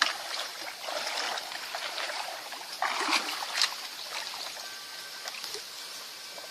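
Water splashing and sloshing, louder in the first half, with a sharp splash about three and a half seconds in.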